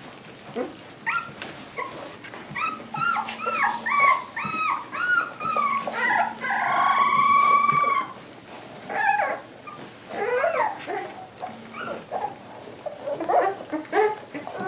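American Water Spaniel puppies whining and squealing: a run of short cries that rise and fall, about two a second, then one long high cry, the loudest, about six seconds in, followed by more scattered whimpers.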